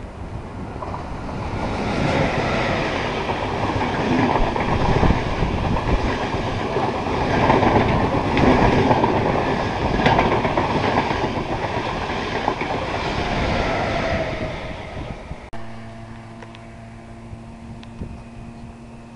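Electric-locomotive-hauled intercity passenger train passing through a station at speed: a rush of wheels on rail and rattling coaches builds, peaks, and fades away. After an abrupt cut near the end, a different electric multiple unit approaches with a steady electric hum of several held tones.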